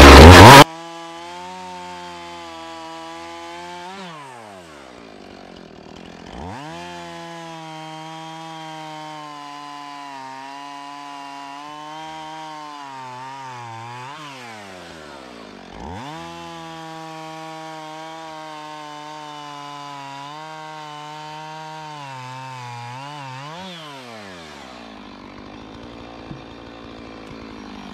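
Two-stroke chainsaw running at high revs. Three times, about 4, 14 and 23 seconds in, its pitch falls away as the throttle is let off and then climbs back as it is opened again. It dies down near the end, after a brief loud noise at the very start.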